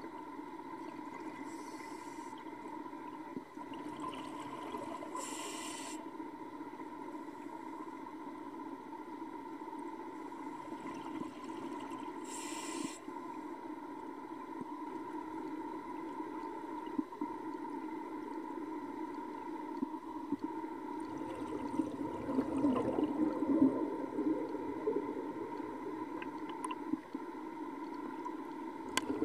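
Steady underwater drone heard through an underwater camera, with two short hissing bursts about five and twelve seconds in, and rougher water and bubble noise later as the diver nears the surface.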